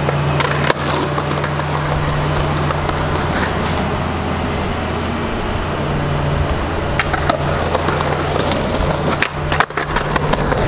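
Skateboard rolling on a concrete sidewalk, its wheels making a continuous rough rumble, with a few sharp clacks in the second half.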